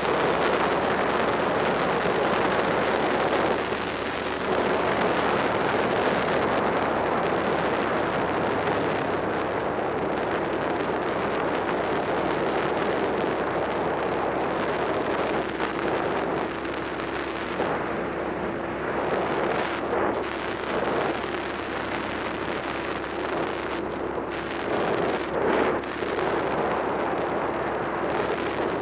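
Wind rushing over the microphone while riding, over the steady running of a Suzuki SV650's V-twin engine at a cruise.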